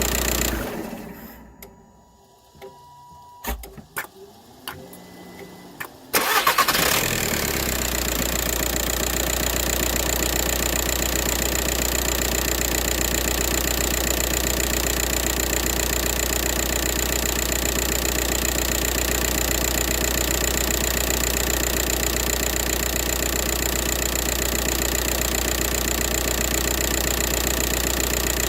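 A 2004 VW Jetta TDI's four-cylinder turbodiesel is switched off and runs down within the first two seconds. A few sharp clicks follow, then at about six seconds it starts straight away and settles into a steady idle.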